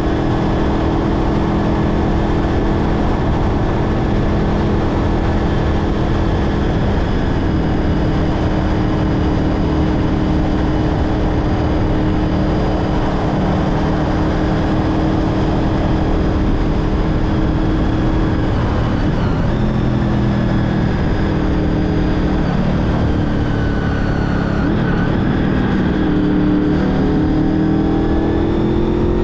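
Honda VFR800 motorcycle's V4 engine running at a steady road speed, with wind rush over it. About two-thirds of the way through the engine note drops, and near the end it rises again as the bike speeds up.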